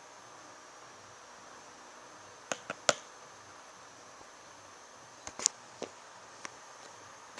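Sharp clicks and knocks of a small plastic flask being handled and set down on a tile floor: a quick run of three about two and a half seconds in, the last the loudest, then a few more around five to six and a half seconds in.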